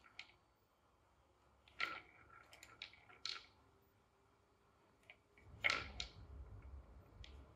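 Balls clacking and rattling in a wooden cat track toy as a cat bats at them: a run of short, irregular clicks and knocks, loudest about five and a half seconds in.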